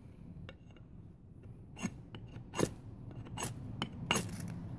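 Ferrocerium fire-starter rod scraped with the back of a steel axe head to strike sparks into cotton tinder: a series of short, separate metal-on-metal scrapes at uneven intervals.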